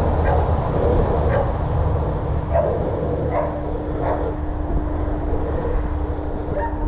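Young greyhound yipping in short excited bursts, several times in the first few seconds, while being held at the starting box, over a steady low rumble. A faint steady hum comes in about halfway through.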